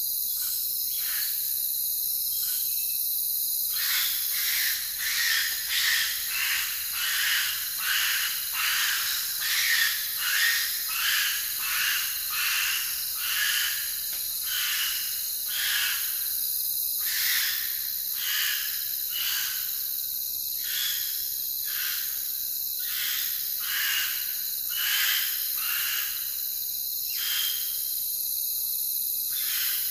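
Insect chorus with a steady high trill. From a few seconds in, a repeated animal call sounds over it about once or twice a second, thickest in the first half and thinning toward the end.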